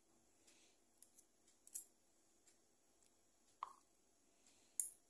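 A metal spoon clicking and scraping against a small bowl as butter is scooped out and dabbed onto the pastry, a few faint separate clicks over near silence, the sharpest near the end.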